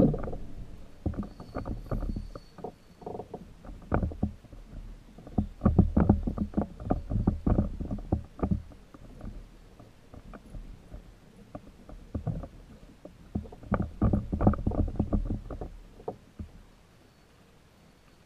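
Irregular knocks, taps and rubbing on a plastic fishing kayak's hull and fittings as the angler handles the rod and reels in a fish. They come in three bunches and die down shortly before the end.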